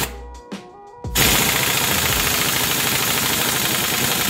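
Impact wrench with a 19 mm socket hammering rapidly and steadily on a Honda Civic's crankshaft pulley bolt, running it down to press the new pulley onto the crankshaft. The rattle starts about a second in, after a few light clicks.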